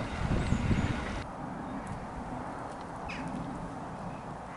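Wind buffeting the microphone with a low rumble, cutting off abruptly about a second in to a quieter outdoor background with a brief faint chirp about three seconds in.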